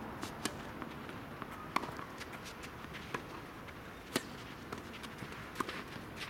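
Tennis ball struck by a racket and bouncing: scattered sharp pops, the loudest about four seconds in as the serve is hit, and several more near the end as the rally gets going.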